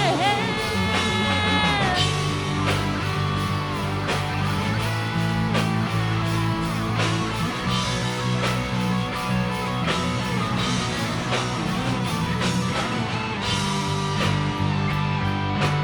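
Rock music: guitars over bass and a steady drum beat, with a held note bending in pitch over the first couple of seconds.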